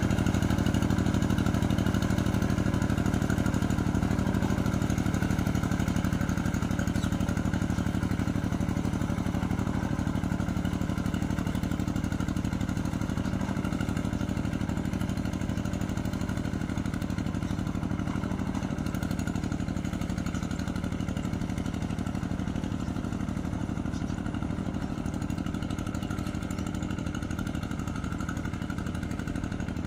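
Rice-field plowing tractor's engine running steadily under load, growing gradually fainter.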